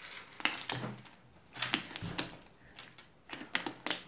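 Slime studded with small plastic pacifiers being pressed and popped, giving a series of sharp crackling pops in short clusters.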